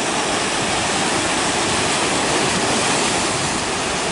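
Lake Superior waves washing over and around shoreline rocks: a steady rush of water.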